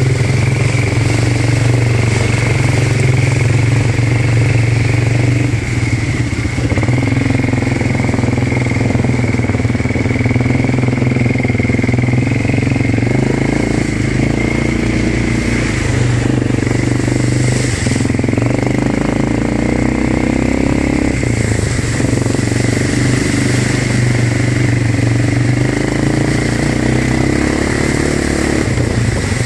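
ATV engine running steadily as the quad is ridden along a muddy trail, its pitch rising and falling slightly with the throttle. A thin, steady high whine runs alongside.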